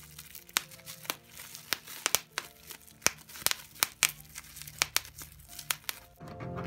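Bubble wrap squeezed between finger and thumb: an irregular run of sharp pops as the bubbles burst, with light crinkling of the plastic in between.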